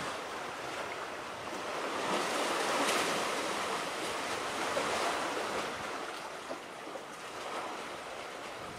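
Sea water washing against the shore, with wind on the microphone; a steady rushing that swells about two to three seconds in.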